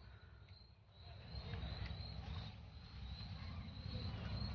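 Crickets chirping in a steady, pulsing high trill, over a low rumble.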